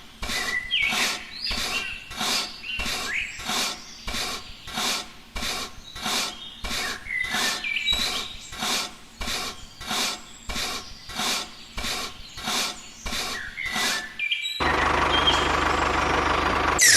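Rhythmic scraping strokes, about two a second, with small birds chirping between them. Near the end the scraping gives way to a steady rushing noise with a low hum.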